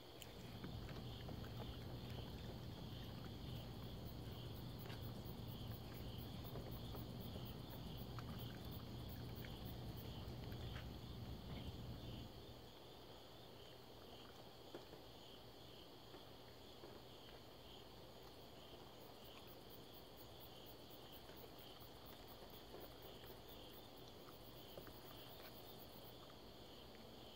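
Night insects chirping steadily, with a low steady hum that cuts off about halfway through. Faint scattered clicks of a raccoon chewing turkey.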